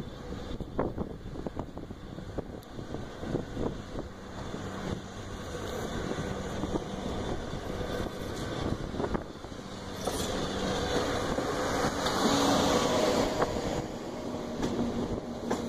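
Self-propelled rail maintenance-of-way machines running along the track toward the listener: engine hum with sharp clacks and knocks from the wheels on the rails. The sound grows louder as they approach and is loudest near the end.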